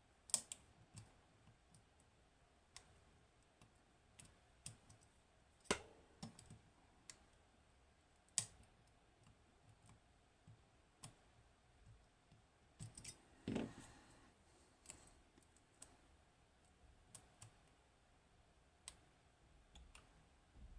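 Sparse, irregular small metallic clicks and taps of a lock pick and tension tool working the pins of a Hori Trident pin-tumbler lock, with a short rattle about thirteen seconds in.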